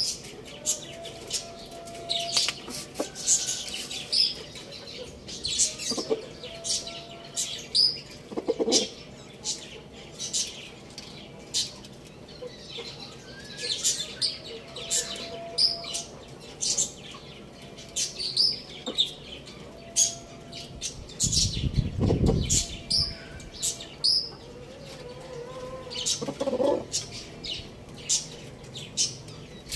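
Small birds chirping in quick, high notes throughout, with a few short low clucks from the rooster. About two-thirds of the way through comes a dull rustle lasting a second or two.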